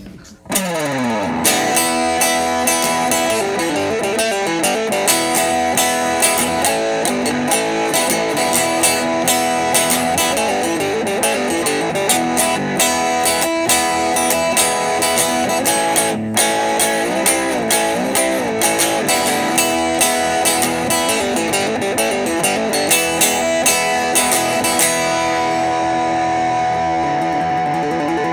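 Instrumental guitar music with a steady beat, starting abruptly about half a second in.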